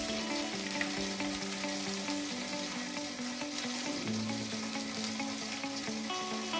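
Chicken pieces frying in mustard oil in a pan, a steady sizzling hiss, with a soft tune playing over it.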